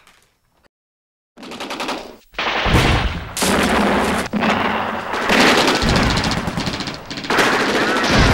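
Loud, sustained automatic gunfire: rapid shots begin about a second and a half in after a brief silence, then thicken into continuous firing.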